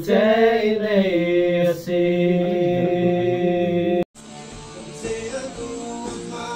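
A singing voice holds a long note that bends at its start, then stops abruptly at a cut about four seconds in. Quieter band music with guitar follows.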